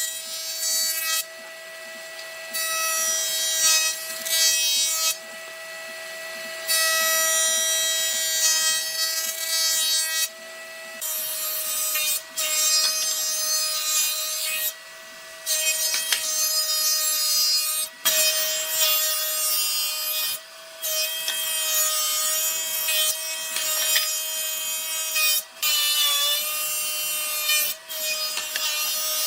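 Electric power tool running and working wood, its motor a steady whine under a noisy cutting hiss, in short stretches that cut in and out abruptly every few seconds.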